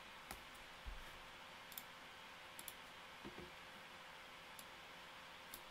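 Near silence with a low steady hiss, broken by about seven faint, sharp clicks at irregular intervals, typical of a computer pointer being clicked.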